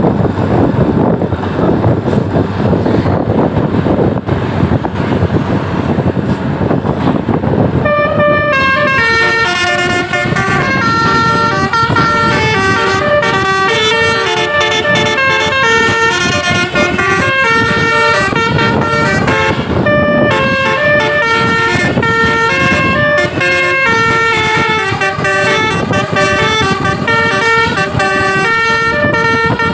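Loud rushing vehicle noise for about eight seconds. Then a bus's Basuri multi-tone 'telolet' horn plays a tune for the rest, in quick stepped notes with several pitches sounding at once.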